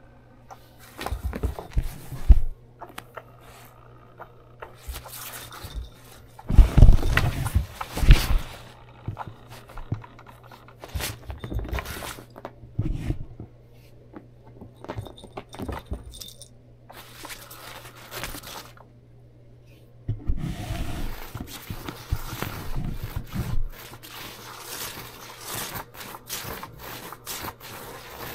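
A cat playing at a fabric-covered toy mat and feather wand toy: bursts of rustling cloth, scrabbling and scraping on the floor, with knocks that are loudest about seven seconds in, and the jingle of its metal collar tag.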